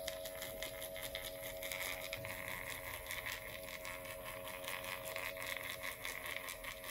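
Secret RF microneedling handpiece firing again and again against the skin, a rapid run of short clicks over a steady electrical hum from the device.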